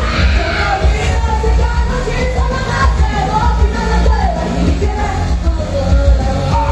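Loud live performance of a pop-rock song: a sung lead vocal over heavy bass and drums, in a large room.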